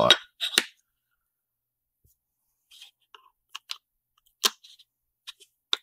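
Light clicks and taps of an mSATA SSD circuit board and drive case being handled and fitted together by hand: a short cluster at the start, a pause, then a handful of separate sharp ticks, the loudest about halfway through.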